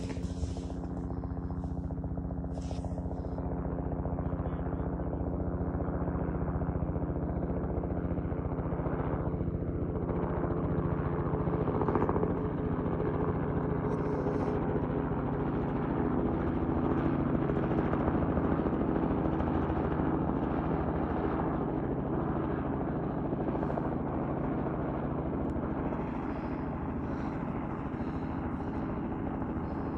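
Robinson R44 helicopter flying past, its rotor and piston engine making a steady pitched drone. It grows louder toward the middle and eases off a little near the end.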